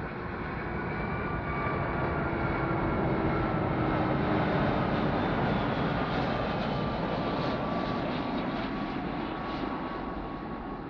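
Boeing 757-200 on final approach, its twin turbofans at approach power: a steady jet roar with a whine in it, swelling to its loudest about four seconds in as the aircraft passes close, then slowly fading, the whine dropping slightly in pitch.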